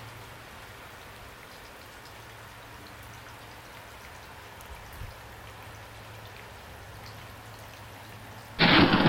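Steady rain falling, an even hiss with a few faint drop ticks. About half a second before the end, a much louder wash of heavy rain and thunder cuts in suddenly.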